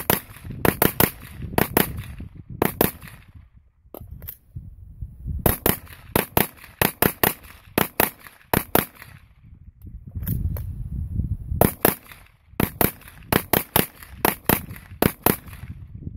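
Battle Rifle Company BR308, a short-barreled AR-10-style rifle in 7.62x51/.308 with a muzzle brake, firing rapid semi-automatic shots. The shots come in quick strings of several, with pauses of a second or two between strings.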